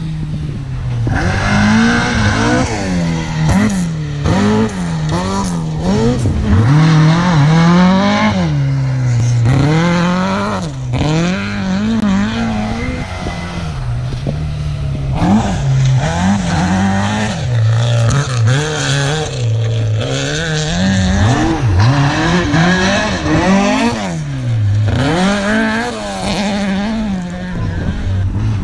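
Rally car engine at full effort on a gravel stage, revving up and dropping back again and again every second or two as it is driven hard through the bends.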